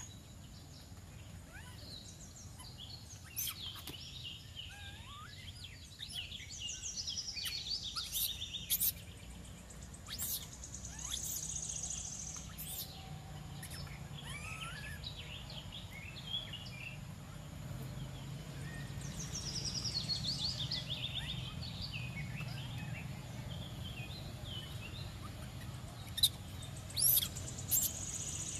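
Outdoor ambience of many birds chirping and calling, with short chirps and fast trills coming and going over a steady low rumble. A few sharp knocks stand out near the end.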